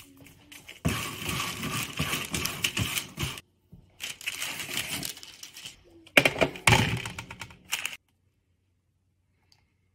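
Crackling, rustling handling noise of food being worked over parchment paper, in three stretches broken by short gaps, then silence for about the last two seconds.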